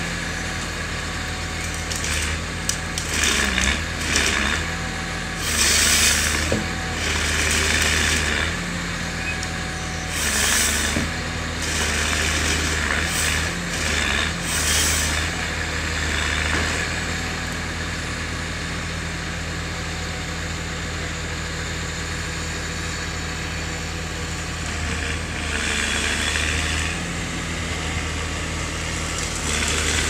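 Diesel engine of a wheeled forest harvester running steadily, with repeated loud rushing bursts, each a second or two long, as the harvester head on its crane grips, feeds and cuts a log.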